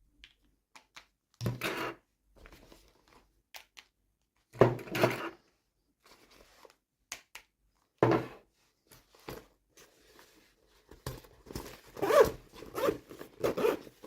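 Toy packaging being handled and opened by hand: short bursts of tearing and rustling with light knocks and clicks, the busiest stretch near the end.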